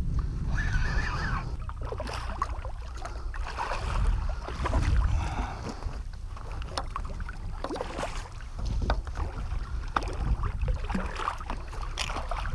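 Wind rumbling on the microphone over water sloshing against a kayak hull, with scattered sharp clicks. A hooked redfish splashes at the surface near the end.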